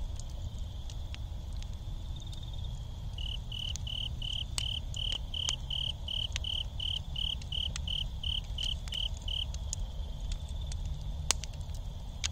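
Campfire embers crackling, with scattered small pops and one sharper pop near the end. Over it, night insects sing: a steady high trill, and a run of regular high chirps at about three a second from a few seconds in to about three-quarters through.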